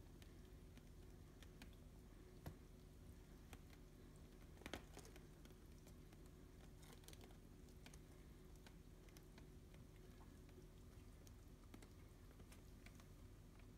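Near silence: faint scattered ticks and rustles of Birman kittens scrambling and playing on soft bedding, a small flurry of them about five seconds in, over a faint steady room hum.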